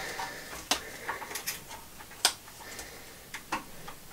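Scattered light clicks and taps, about five or six, the loudest a little past the middle, as hands work the parts around a small petrol engine's carburettor and throttle linkage.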